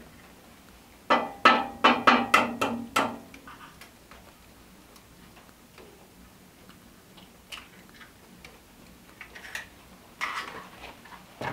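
Metal cookware clinking and knocking on a cast iron woodstove top. A quick run of about eight sharp clinks comes about a second in, then a few faint ticks, and another clatter near the end.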